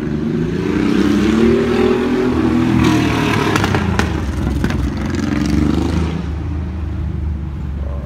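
A motor vehicle's engine running close by, its pitch rising and then falling over several seconds as it accelerates past, with a couple of sharp clicks near the middle.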